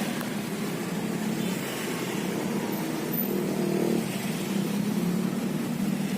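Street traffic: motor vehicle engines, among them motorcycles, running steadily over a constant hum of road noise.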